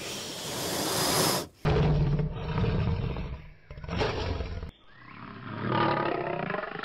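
A snake hissing for about a second and a half, then after a sudden cut a lion roaring in loud, deep calls, with a higher drawn-out call near the end.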